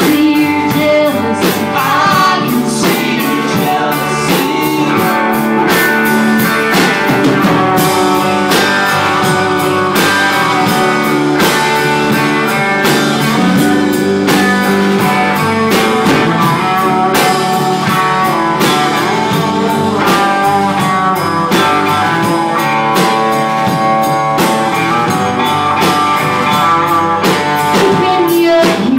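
Live rock band playing: several electric guitars over a drum kit, with a steady beat throughout.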